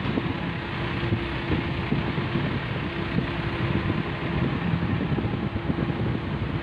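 JCB backhoe loader's diesel engine running steadily as the machine drives with a load on its front pallet forks.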